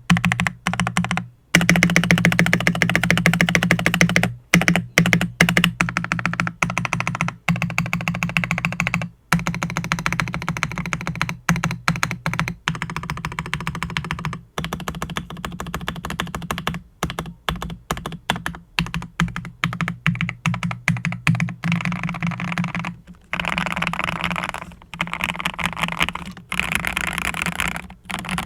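A CIY GAS67 mechanical keyboard with factory-lubed Gateron Oil King linear switches on a polycarbonate plate, foam-modded, being typed on fast. The typing comes in quick runs of keystrokes broken by many short pauses.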